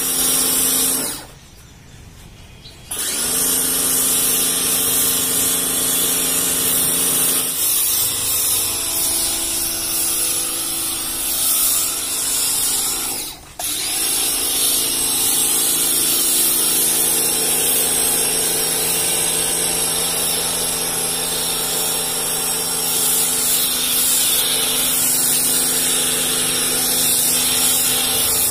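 Pioneer P2 1600 W electric pressure washer running under load, its motor and pump humming steadily while foam sprays from the foam cannon with a loud hiss. It cuts out briefly about a second in and again for a moment about halfway through.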